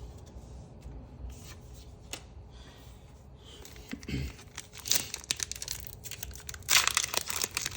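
Foil Pokémon booster pack wrapper crinkling and being torn open, starting with light rustles and clicks and building to a loud run of tearing and crackling near the end.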